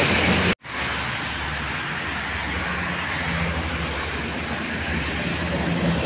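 Highway traffic passing close: the steady low running of bus and truck engines over tyre and road noise. The sound cuts out suddenly for an instant about half a second in.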